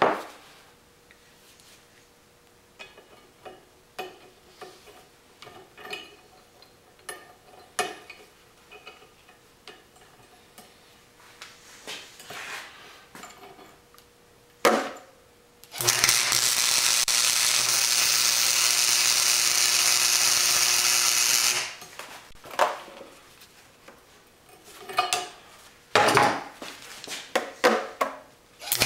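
Tools and steel parts clinking on a steel workbench, then a MIG welder runs an arc for about six seconds with a steady hiss, welding a castle nut onto a steel plate; a few more metal clinks follow near the end.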